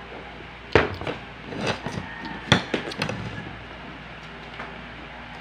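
Spoon and dishes knocking and clinking during a meal, a quick run of sharp knocks in the first three seconds, then it settles.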